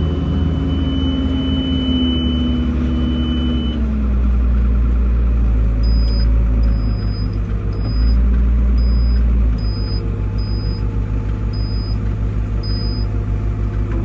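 Tractor engine running under load while pulling a round baler, a deep steady drone that shifts in level a few times. From about six seconds in, short high beeps repeat roughly once a second over it.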